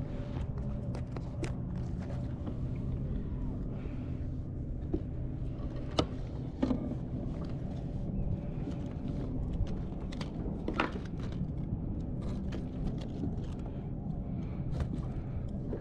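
Scattered clicks and knocks from handling a fish and gear on a plastic kayak, over a steady low background rumble. The sharpest clicks come about six seconds in and again near eleven seconds.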